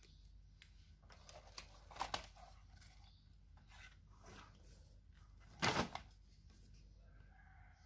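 Faint rustling and crinkling from a paper shopping bag and a silicone oven glove being handled, in short bursts about two seconds in, with one louder, brief burst of handling noise about two-thirds of the way through.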